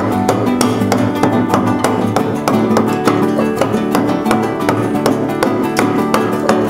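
Background music: acoustic guitar played with rapid plucked notes.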